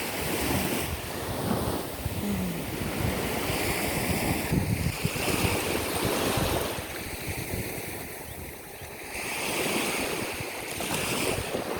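Small surf washing onto the beach, the waves swelling and easing over a few seconds each, with wind buffeting the microphone.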